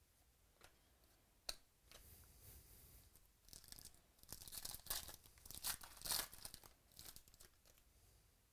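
A 2017 Panini Illusions football card pack's wrapper being torn open and crinkled, in a run of short tearing and crackling sounds in the middle, loudest about halfway through. A single sharp tap comes about a second and a half in.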